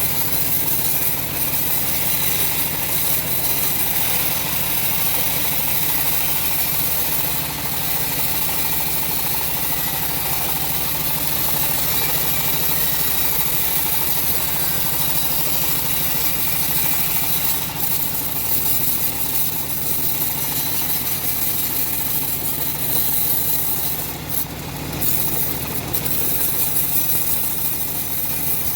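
Engine of a homemade log bandsaw running steadily.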